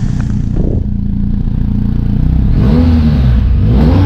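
Motorcycle engine running steadily, then revving up and dropping back twice in the second half.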